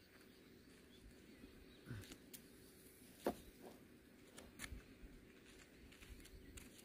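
Faint, scattered taps and scrapes of a rake spreading oat grain on a drying tarp, with one sharper tap about three seconds in.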